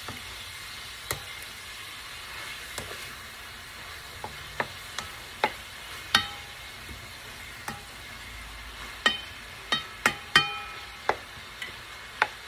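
Shrimp sizzling faintly in a metal frying pan while being stirred with a spatula that knocks against the pan about fourteen times. A few knocks make the pan ring briefly, and the knocks come closer together in the second half.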